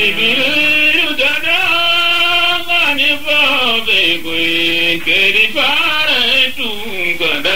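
Chanted singing: a voice holding long, drawn-out notes that glide up and down in pitch, with no clear beat.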